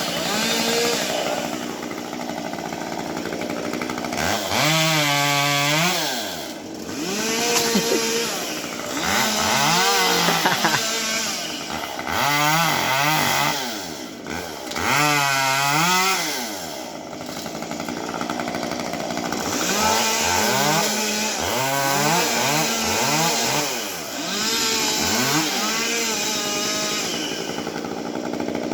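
Chainsaw engine revving up and dropping back again and again, its pitch rising and falling every couple of seconds as it cuts through a tree.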